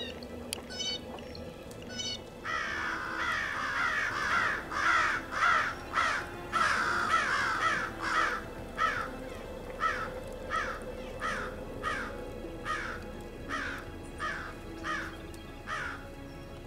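American crows cawing: a long run of harsh caws starting a couple of seconds in, crowded and overlapping at first, then settling into an even series of about one and a half caws a second.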